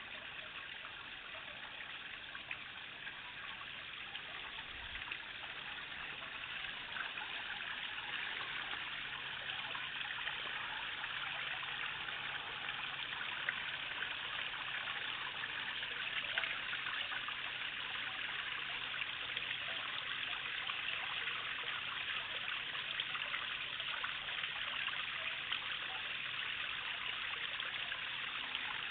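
Waterfall: a steady rush of falling and splashing water.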